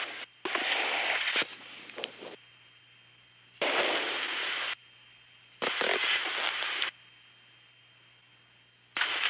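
Onboard crew audio loop of Space Shuttle Columbia: bursts of hiss and crackle about a second long, each switching on and cutting off abruptly, five times, with a faint steady hum in the gaps between them.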